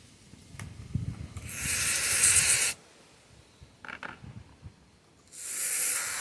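Aerosol carburetor cleaner sprayed onto carburetor parts in two hissing bursts, each about a second long, with light handling knocks between.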